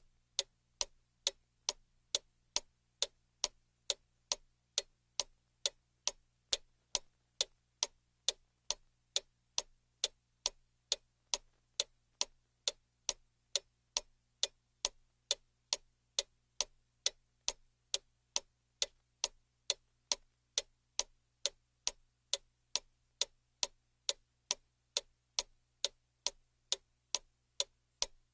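Mantel clock ticking steadily, even clicks a little over two a second.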